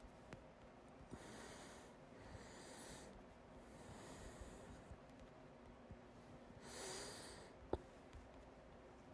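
A person breathing quietly. Near the end, right after a louder breath, comes a single sharp hiccup.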